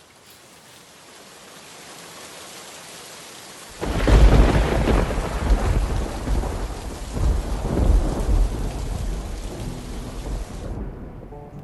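Thunderstorm: steady rain that grows louder, then a loud crack of thunder about four seconds in that rolls on for several seconds. The rain cuts off near the end as music begins.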